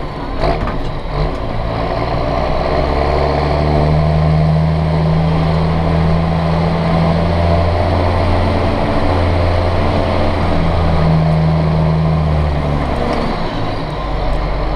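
John Deere 6620 tractor's six-cylinder diesel engine running, heard from inside the cab. It gives a steady drone with a humming note that comes in strongly a few seconds in, drops out briefly and returns, then eases off near the end.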